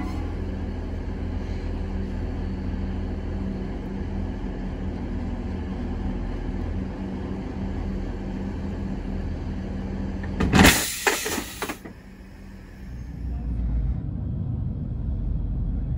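DB Class 612 diesel multiple units idling, a steady low hum with one constant tone. About ten seconds in comes a loud hiss lasting about a second with a few sharp spikes, then a low rumble of a train running, heard from inside the carriage.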